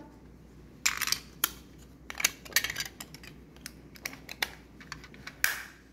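A plastic toy ambulance and a small part being handled and fitted together: a run of irregular sharp clicks and light plastic knocks.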